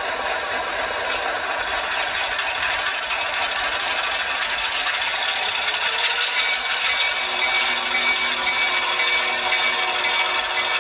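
ESU LokSound sound decoder in an HO-scale Athearn diesel switcher playing its diesel engine sound through the model's small speaker: a steady rattling clatter. About six seconds in a thin higher whine joins it as the locomotive starts to creep forward.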